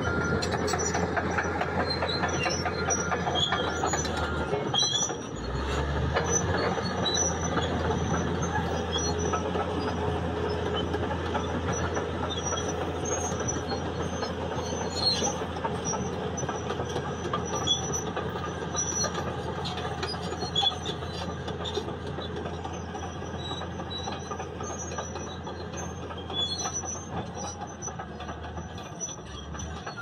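Steady mechanical noise with scattered high-pitched squeals, with a brief change in the low rumble about five seconds in.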